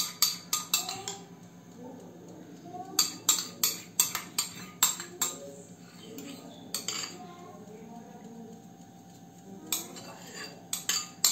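A metal spoon clinking and scraping against a small ceramic bowl while scooping out tomato sauce. The taps come in quick groups with pauses between.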